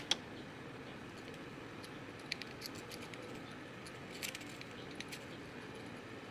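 A few faint, scattered clicks and taps of small metal hand tools and parts against the steering box, as a snap ring and washer are worked out of the pitman shaft seal bore.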